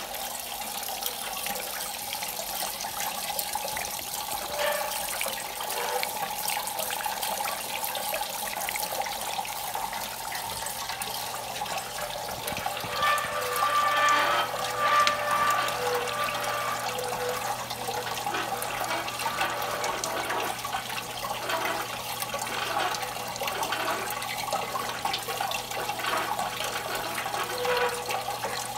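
Water running continuously in a copper-and-brass art fountain, pouring from a faucet spout and a coiled copper tube and splashing into metal basins, slightly louder about halfway through.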